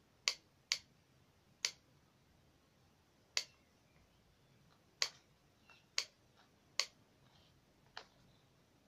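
Hot glue gun trigger clicking as a run of glue is squeezed out: about eight short sharp clicks at uneven intervals, roughly a second apart, the last one fainter.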